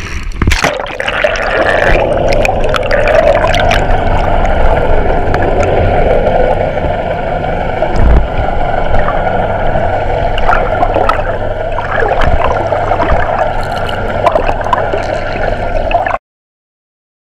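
Water rushing and gurgling around a GoPro held underwater in its waterproof housing: a loud, muffled, steady rush with scattered clicks and knocks. It cuts off abruptly near the end.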